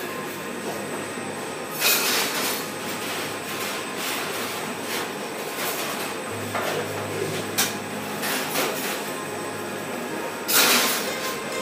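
Kibbeh-forming machine running steadily with its conveyor belt, a constant mechanical hum with a thin high whine. Two short louder rushes of noise come about two seconds in and near the end, and a sharp click falls near the middle.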